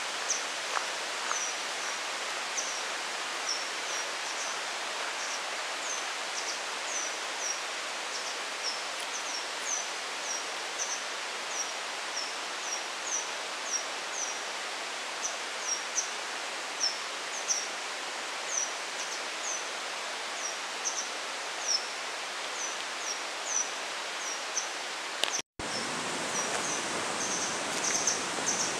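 Mountain forest ambience: a steady hiss with short high chirps repeating one to two times a second. The sound drops out for a moment near the end.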